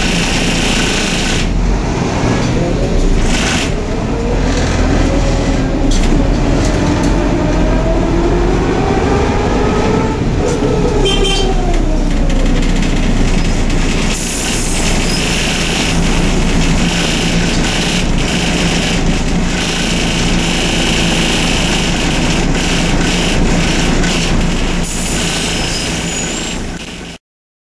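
Interior of a Neoplan/ΕΛΒΟ N4007 city bus under way: steady engine and road rumble in the cabin. A whine rises in pitch over several seconds as the bus gathers speed, falls away about ten seconds in, then settles to a steady running sound.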